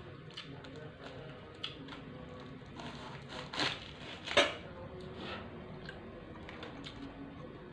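Knife cutting food at the table: a run of small clicks and scrapes, with two louder sharp sounds a little under a second apart midway.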